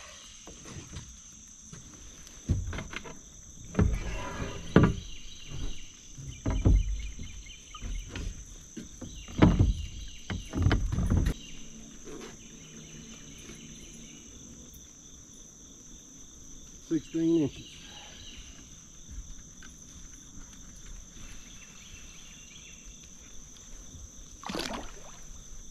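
A run of knocks and bumps against a kayak over the first half, as gear or a fish is handled on board. A steady high insect drone runs underneath.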